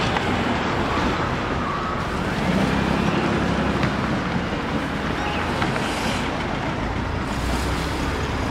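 Street traffic noise: the steady hum of cars on a city road, with a low rumble swelling as vehicles pass, once about three seconds in and again near the end.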